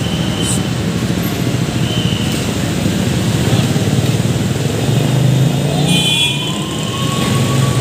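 PNR INKA train rolling away along the track with a steady low rumble. A drawn-out high whine rises about five seconds in and holds.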